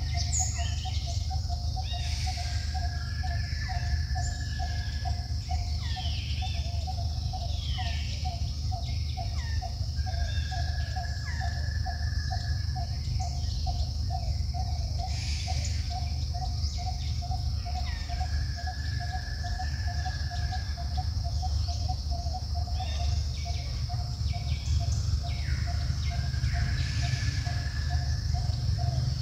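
Birds calling in the open: repeated falling chirps and a held whistle that returns about every eight seconds. Under them run a steady high insect drone, a fast regular pulsing call and a low rumble.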